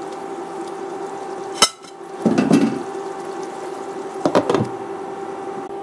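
Pots and pans being handled on a stove: a sharp click a little past a second and a half in, a short clatter soon after, and a couple of knocks about four seconds in, over a steady hum.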